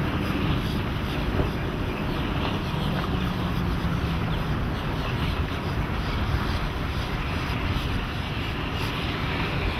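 Twin Mercury 225 hp four-stroke outboards running steadily with the boat underway, mixed with a steady rush of wind and water.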